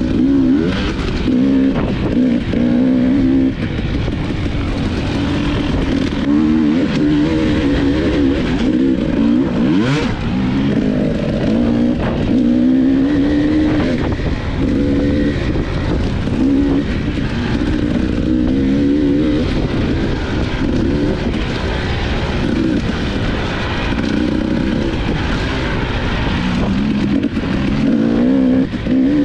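Dirt bike engine being ridden hard on a trail, its pitch rising and falling every second or two with throttle and gear changes. A sharp knock comes about ten seconds in.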